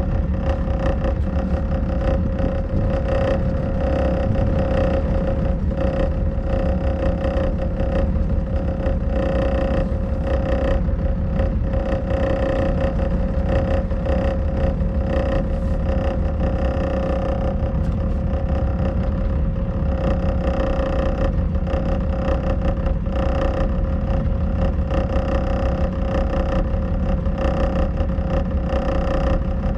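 A small pleasure boat's engine running steadily while under way, a constant drone with no change in pitch.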